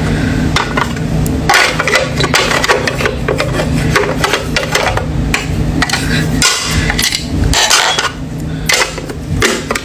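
Clear acrylic storage box being handled: repeated sharp plastic clacks and knocks as the lid and box are set down, fitted and tapped.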